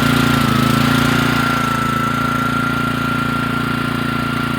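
Small Honda four-stroke engine on a Kärcher residential pressure washer running steadily just after starting, with a steady high whine alongside.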